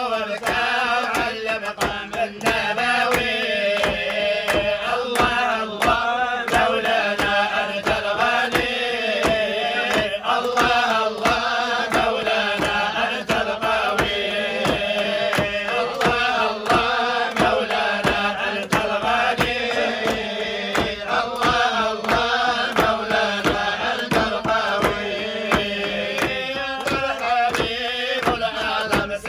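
A group of men chanting an Islamic dhikr together in unison, the melody rising and falling continuously, with rhythmic hand clapping keeping the beat.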